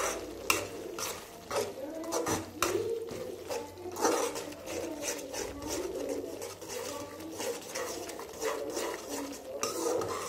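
Steel spoon stirring thick tomato-onion masala gravy in a metal pan, with frequent clinks and scrapes of the spoon against the pan.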